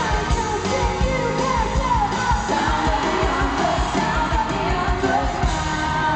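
Live pop concert music: female vocals singing over a band with a steady drum beat, at full arena volume, with some crowd yelling mixed in.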